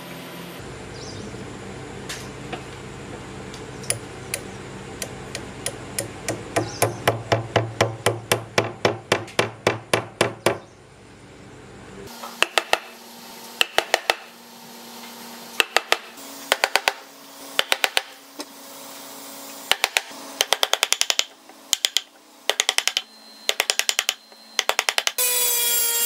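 Hammer blows on a wood chisel, struck in short quick bursts to hollow a channel in a pine board for a sword scabbard. Just before the end, a handheld rotary tool spins up with a rising whine. The first ten seconds are background music: a low hum with a ticking beat that speeds up.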